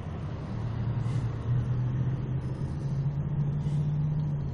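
Car's engine and road noise heard from inside the cabin, a steady low hum that rises slightly in pitch as the car gathers speed.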